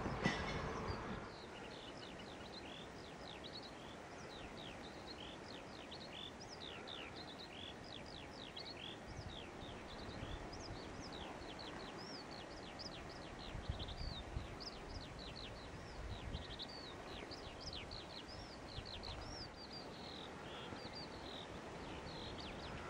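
Birds singing in farmland: a continuous stream of short, quick, high chirping notes, with a low rumble of wind on the microphone that swells briefly about halfway through.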